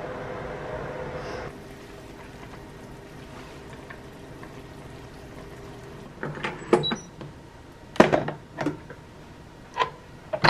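Induction hob humming steadily under a cast-iron pot, the hum dropping a little about a second and a half in. In the second half come several sharp knocks and clatters of kitchen things being handled, the loudest about eight seconds in.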